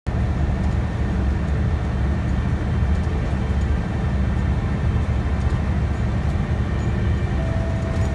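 Steady low rumble of a city bus's engine and tyres, heard from inside the passenger cabin while the bus is moving.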